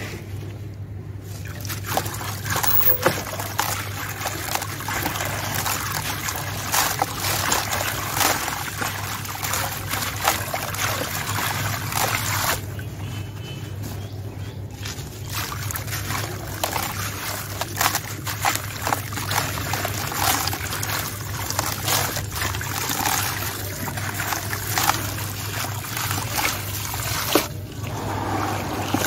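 Dry sand-cement chunk soaking in a tub of water, crackling with many fine clicks as the water gets into it and it breaks up, with water trickling. Near the end the softened cement is squeezed and crumbled by hand in the water. A steady low hum runs underneath.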